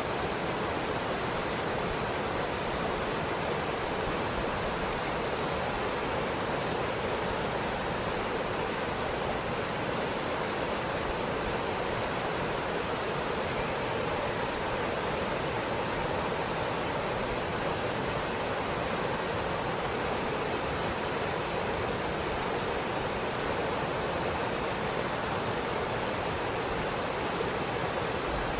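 Steady chorus of shrilling insects: a continuous high-pitched drone with no breaks, over an even background hiss.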